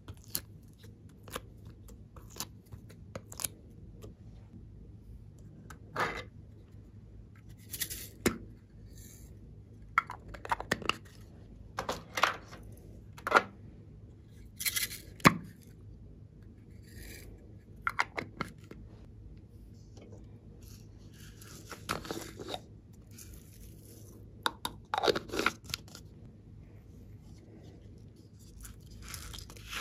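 Close-up handling of plastic containers and soft clay: scattered sharp clicks and taps of plastic boxes and lids, with a few longer peeling and scraping sounds as clay shapes come out of a plastic mold and lids are worked open.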